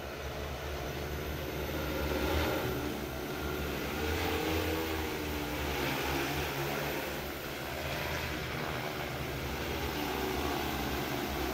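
Large multirotor agricultural spraying drone's propellers humming steadily in flight, growing a little louder over the first couple of seconds.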